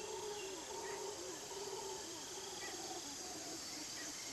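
Tropical forest at dusk: a steady high hum of insects, with a faint, long wavering call from an unseen animal and a few short high chirps.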